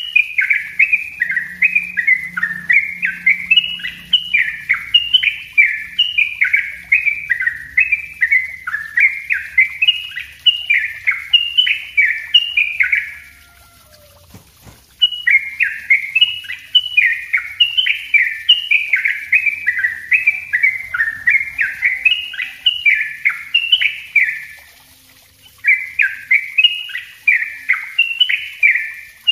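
Caged yellow-vented bulbul (trucuk) singing a dense, rapid run of short chirping notes. Each note sweeps up and down, about two to three a second, broken by a pause of about two seconds near the middle and a shorter pause later on. This is the tight rolling 'ropel rapat' song that keepers use as a lure and a tutor song for other birds.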